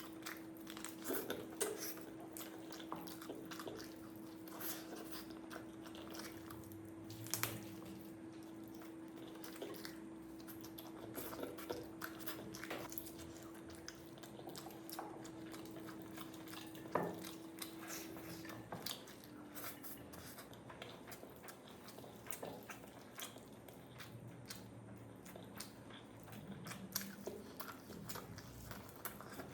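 A person eating a meal of rice and curry: close chewing and biting, with many small irregular clicks, smacks and crunches. A steady low hum runs underneath and stops about two-thirds of the way through.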